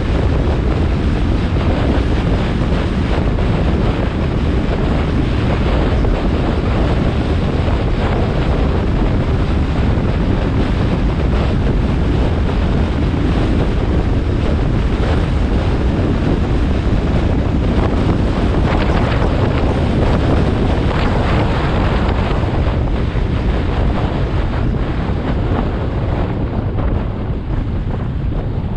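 Heavy wind noise buffeting the microphone of a motorcycle rider's helmet camera at road speed, a steady loud rumble that covers the bike's engine. It eases slightly near the end as the motorcycle slows.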